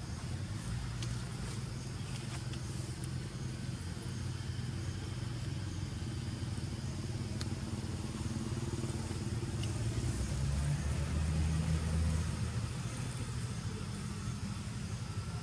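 A motor vehicle's engine running nearby with a steady low hum, growing louder about ten seconds in and easing off again near the end, as if passing by.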